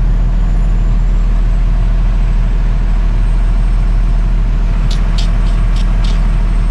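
Diesel engine of a Class A delivery truck running steadily, a constant low drone heard from inside the cab, with a few short clicks about five seconds in.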